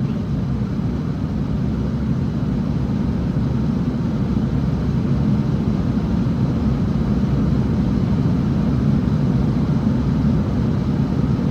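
Airliner cabin noise in flight: the steady low drone of the engines and rushing air, unbroken and even in level.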